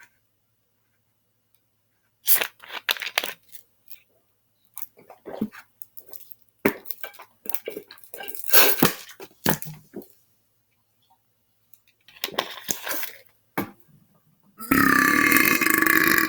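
A man belching on purpose: a string of short, scratchy sounds over several seconds, then near the end one long, loud belch with a steady pitch, held for about two seconds.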